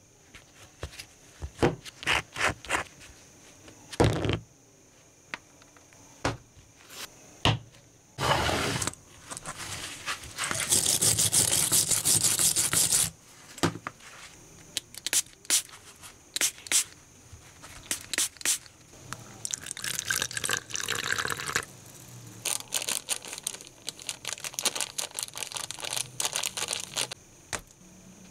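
A metal nut and tools handled on a wooden surface: scattered knocks and clicks, then about three seconds of loud steady hissing a little over a third of the way in, and later a long run of quick clicks and taps.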